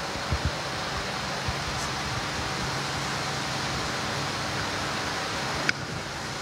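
Steady, even rushing background noise picked up by the altar microphone, with a low hum under it, a few soft low thumps in the first second and a half, and a sharp click near the end.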